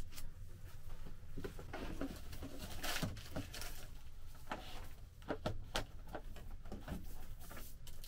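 Light knocks and scraping from a grey plastic pipe being handled and set against a plank wall, with a louder rustling scrape about three seconds in.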